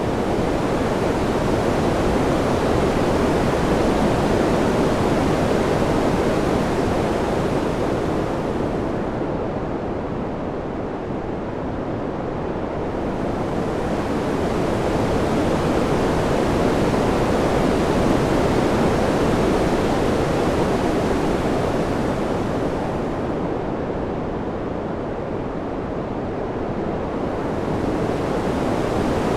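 Steady rushing wind noise that swells and eases slowly. Its high hiss fades away twice, about ten seconds in and again near the end, then comes back.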